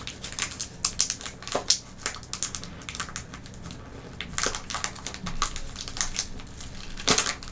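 Crinkly plastic snack bag being handled and tugged at while someone struggles to tear it open: irregular crackles and clicks, with a denser burst near the end.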